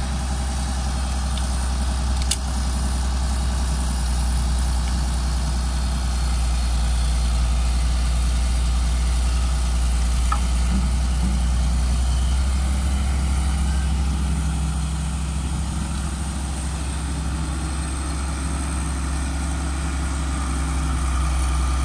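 Diesel engine of a CAT tracked hydraulic excavator running steadily, with a sharp click about two seconds in and a smaller one near the middle.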